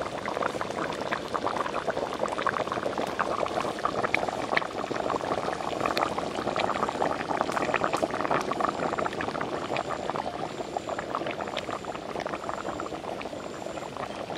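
Watery chicken liver curry boiling hard in a large metal pot: a steady, dense bubbling made of many small pops.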